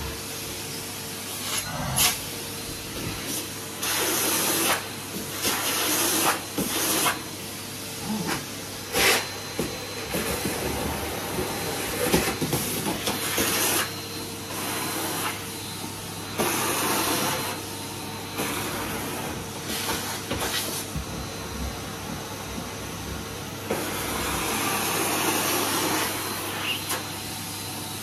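Numatic Henry canister vacuum cleaner running, its metal wand sucking along the carpet. The steady hiss of air keeps surging louder and dropping back as the nozzle is worked over the carpet.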